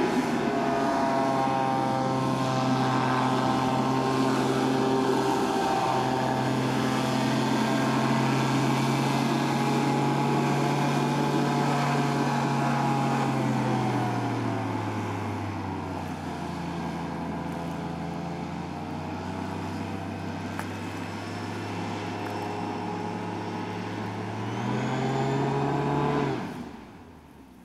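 Airslide H37 hovercraft's engine and ducted propeller fan running hard with a steady drone. About halfway through the pitch drops as the craft slows, rises briefly near the end, then the sound cuts off sharply.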